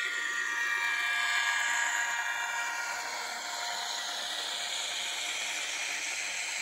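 An N-scale model M62 diesel locomotive passing, its DCC sound decoder playing the diesel engine sound through a tiny speaker, mixed with the whine of the model's electric motor, the tones sliding in pitch. After the locomotive goes by, the freight wagons roll past on the track with a steady hiss.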